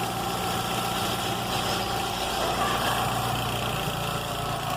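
Car engine idling steadily with a freshly fitted poly-V accessory drive belt, and no belt squeal or whistle. The quiet run shows the squeal was the worn old belt and that the alternator bearing is fine.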